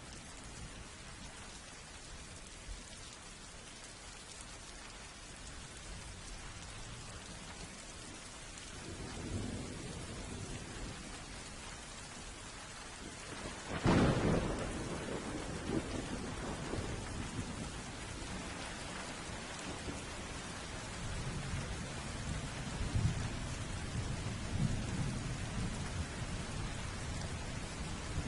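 Thunderstorm: steady rain with thunder. A low rumble sets in about nine seconds in, a sharp thunderclap about halfway through is the loudest moment and rolls on, and more rumbling follows near the end.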